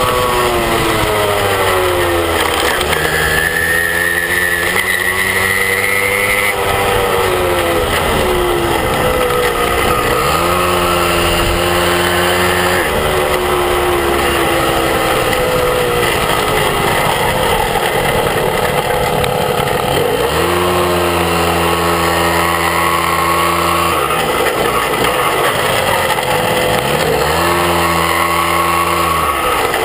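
Moped engine running while riding, its note dropping as the throttle eases off and climbing again several times, with a steady rush of wind and road noise.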